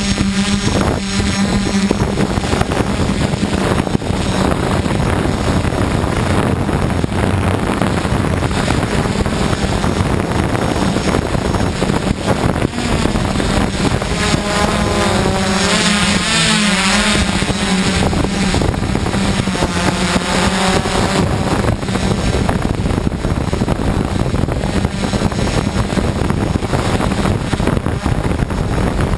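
DJI F550 hexacopter in flight: its six motors and 10-inch propellers hum steadily, with wind noise over them. From about halfway through, for several seconds, the rotor tones waver and beat against each other as the motors change speed.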